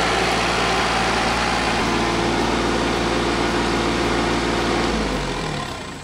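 TYM T25 compact tractor's diesel engine running steadily. About five seconds in, its pitch falls and the sound fades.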